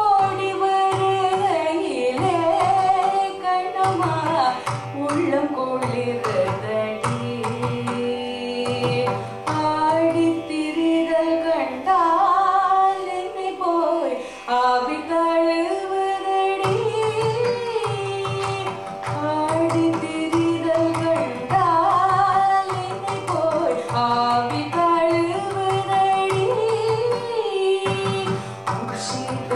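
Carnatic vocal music: a woman sings a richly ornamented, sliding melodic line to mridangam accompaniment over a steady drone. The mridangam's strokes drop away for several seconds midway and then come back in.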